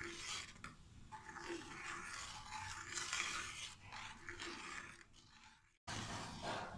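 A steel ladle stirring and scraping thin besan kadhi around a metal kadai, faint and irregular, as the gravy is kept moving so no lumps form. The sound cuts out completely for a moment about five seconds in.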